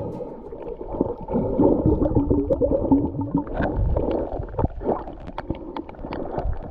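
Muffled underwater sound from a camera held below the surface: gurgling water and bubbles with wavering low tones, and scattered short clicks and knocks in the second half.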